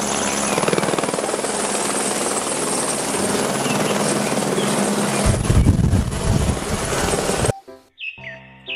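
Light single-engine helicopter flying low: steady turbine and rotor noise, with a heavier low rumble over the last couple of seconds. It cuts off suddenly near the end, giving way to short music-like electronic tones.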